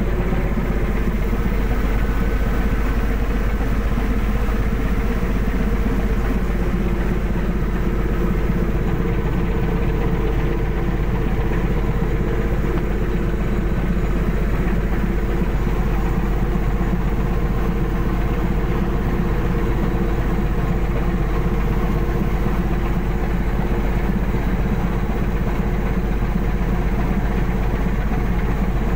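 Fishing vessel's engine and deck machinery running: a steady low drone with a constant hum, with no change throughout.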